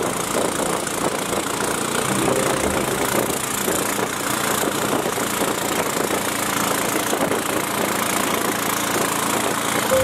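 Motorboat engine running steadily with a fast, even chug.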